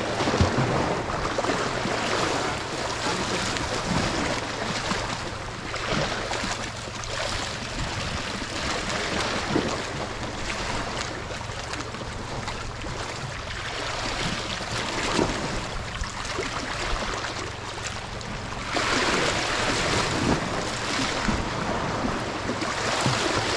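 Moving water, waves lapping and washing, with some wind noise on the microphone; the wash grows louder about nineteen seconds in.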